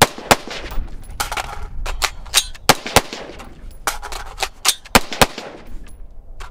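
Cobalt Kinetics TEAM AR-15 rifle fired semi-automatically in quick, irregular strings of shots a few tenths of a second apart, some shots louder than others.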